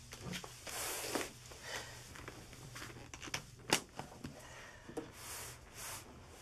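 Quiet room tone with a low steady hum, faint rustling and a few soft clicks and knocks, one sharper click a little before the four-second mark.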